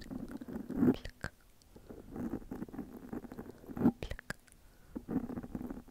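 Soft whispering close to a foam-covered microphone, broken by sharp mouth and lip clicks, with a quieter pause a little after a second in.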